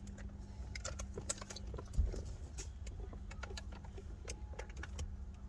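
Scattered small clicks and taps from hands and a tool working the airbag module into the steering wheel, with one louder knock about two seconds in, over a steady low hum.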